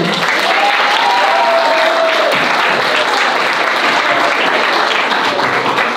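Audience applauding steadily after a speech, with a voice calling out over the clapping in the first two seconds.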